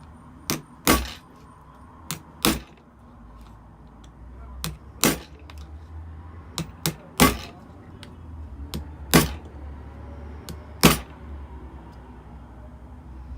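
A scalpel blade is struck into the seam of an Apple 87W USB-C power adapter's plastic case, splitting it open. The blows come in about six pairs, a light tap followed by a harder knock, every couple of seconds.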